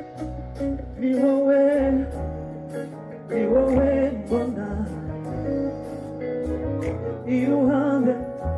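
A song with a singing voice over bass and a beat. The voice comes in three short sung phrases, about a second in, near the middle and near the end.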